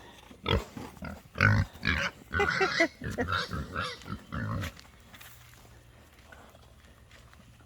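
A group of pigs grunting and oinking in short calls for about the first five seconds, then going quiet.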